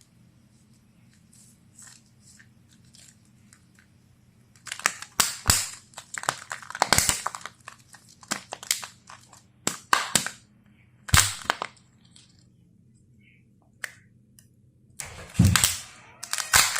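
Kinder egg wrappers being crinkled and torn open by hand, with sharp cracks and clicks. Faint rustling for about four seconds, then loud crinkling in clusters for the rest.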